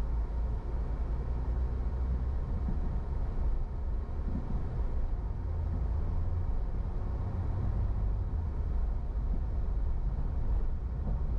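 A car driving on city streets: a steady low rumble of engine and tyre noise.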